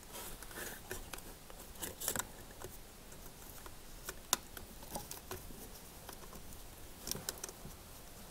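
Small plastic electrical connector being handled and pushed onto the terminals of a dishwasher's pump and heating-element assembly: scattered faint clicks, taps and rustles of plastic, with the sharpest taps about two seconds and four seconds in.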